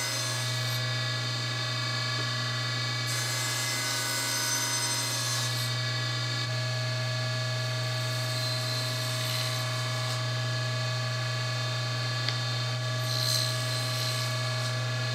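Table saw running at speed, a steady motor hum and whine, while light passes trim the end of a small wooden rail to leave a tongue.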